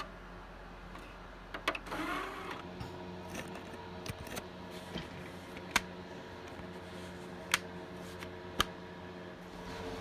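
A plastic CD jewel case being handled: a few sharp plastic clicks, spaced a second or more apart, over handling rustle and a steady low hum.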